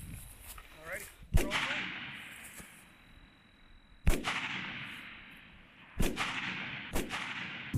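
Four rifle shots, coming closer together toward the end, each followed by a rolling echo that fades over a second or two.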